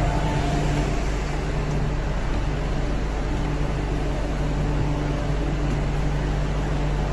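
Steady mechanical hum and rush of an underground metro station platform: a constant low drone under an even hiss.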